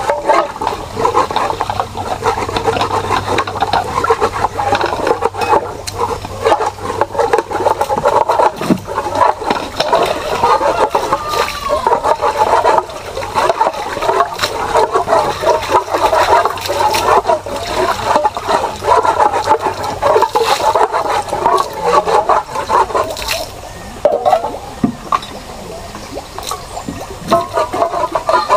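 Tap water running and splashing while cooking pots and utensils are washed, over a low steady hum. The splashing eases off near the end.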